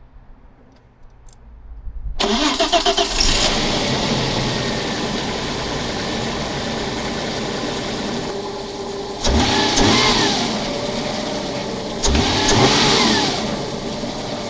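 2000 Volkswagen Passat engine starting about two seconds in and running steadily, now that its failed fuel pump has been replaced, ending the crank-no-start. It is revved briefly twice in the second half.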